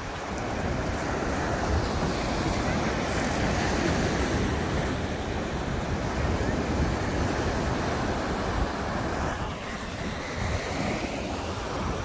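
Sea surf breaking and washing over a pebble beach, a steady rushing wash, with wind buffeting the microphone.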